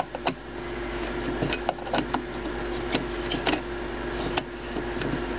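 Irregular light metallic clicks and scrapes as an oil lamp's metal wick burner is set back into the lamp base and screwed onto the font's collar by hand.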